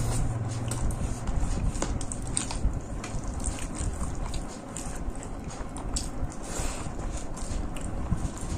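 Close-miked chewing of a mouthful of rice and egg masala, with irregular wet mouth clicks and smacks, while fingers mix rice on a banana leaf.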